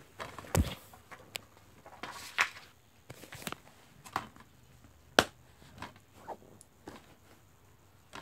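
Plastic DVD case being handled and shut: a string of sharp clicks and snaps with some rustling between them, the loudest about half a second in and about five seconds in.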